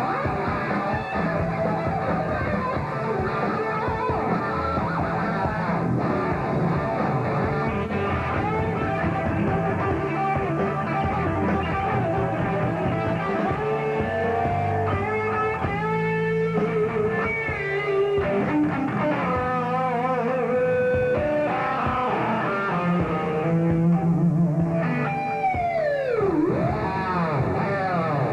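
Live rock band playing, with electric guitar out front over drums and bass. Near the end the guitar's notes swoop down in pitch and back up several times.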